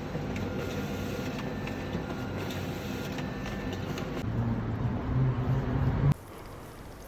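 Steady running noise of a moving vehicle, growing a little louder before it cuts off abruptly about six seconds in.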